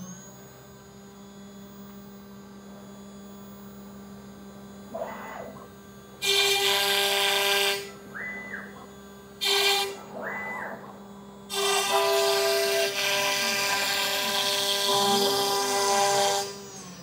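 CNC router spindle running steadily at 12,000 rpm while a 10 mm compression end mill cuts into plywood. The cutting noise is loud and comes in three stretches, the last and longest ending about a second before the end. Between cuts the axis motors give short whines that rise, hold and fall as the head moves.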